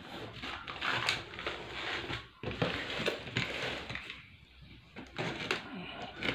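Utility knife slicing through packing tape and cardboard along the seams of a cardboard box, with hands scraping and rubbing on the cardboard. It goes quieter briefly a little past the middle, then the cutting picks up again.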